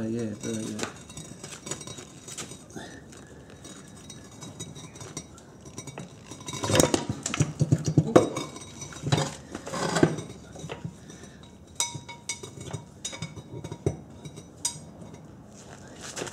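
Metal clinks and clanks as a heavy Jaguar brake upright carrying a Brembo caliper and rotor is handled and fitted up against the truck's front suspension. The knocks come in irregular clusters, loudest and busiest about seven to ten seconds in, with scattered single clanks after.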